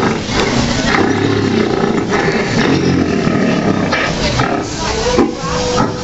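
Animatronic gorilla's recorded calls played over speakers, loud and low, strongest from about a second in until about four seconds, over the chatter of diners.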